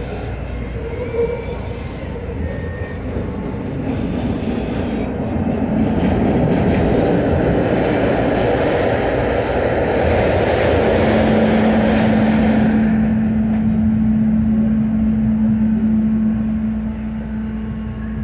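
SEPTA subway-surface trolley car running on the rails, heard from inside the car: a rumble of wheels on track that builds, holds, then eases near the end. A steady hum joins about halfway through and stays to the end.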